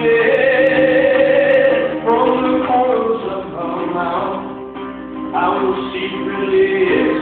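Live band music with plucked strings under a long-held melody line that shifts pitch every second or two, easing off briefly about five seconds in.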